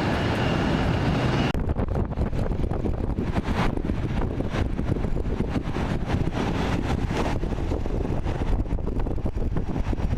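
Jet airliner engine noise with a steady high whine that cuts off abruptly about a second and a half in, followed by wind buffeting the microphone over a low rumble.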